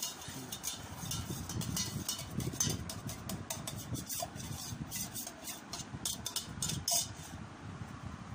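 A spoon clinking and scraping against a steel cup as a child stirs lassi: repeated light, uneven clinks over a low handling rumble.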